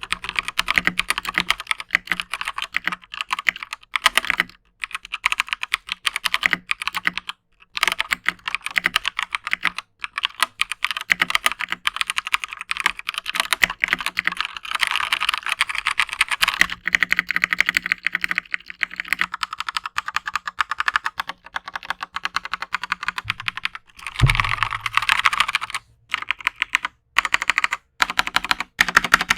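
Typing on an Akko 3087 World Tour Tokyo full-size mechanical keyboard for a typing sound test: a dense, fast run of keystroke clacks broken by a few short pauses, with a low thump about three-quarters of the way through.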